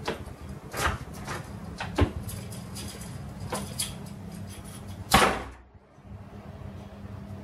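Several scattered knocks and clicks, the loudest about five seconds in, over a steady low hum.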